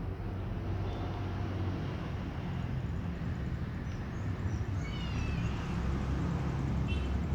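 Steady low rumble of distant traffic, with two short high-pitched calls, one falling in pitch about five seconds in and a briefer one about seven seconds in.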